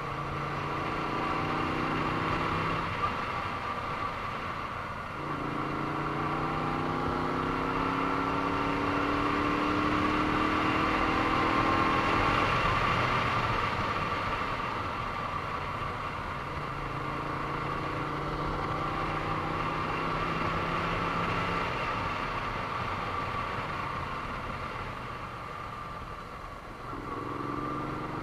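Moto Guzzi V35's small air-cooled V-twin running on the move, pulling through the gears: its pitch climbs steadily through a long pull in the middle and drops back as the throttle eases off a few times.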